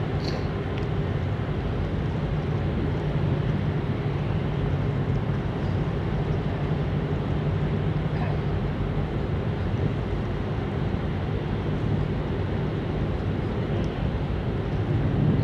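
Ships' engines droning steadily as a low hum, under a faint wash of noise.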